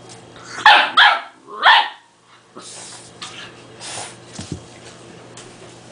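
Dogue de Bordeaux puppy barking three times in quick succession, about a second in, at a small toy ball.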